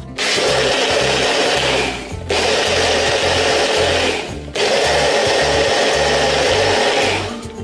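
Personal bullet-style blender grinding seeds in water, the motor running in three pulses of two to three seconds each with brief breaks between them.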